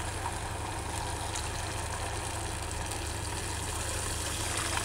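Water poured from a glass jug into a hot saucepan of frying tomato paste, onion and garlic: a steady hiss over a steady low hum.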